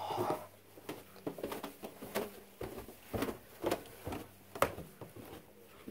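Footsteps going down carpeted stairs: irregular soft thuds, about one or two a second.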